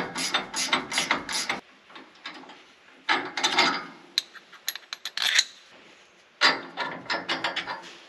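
Hand ratchet wrench clicking in quick, even strokes, about four a second, in three spells with short pauses between, as bolts on a combine's concave are turned by hand instead of with a cordless driver.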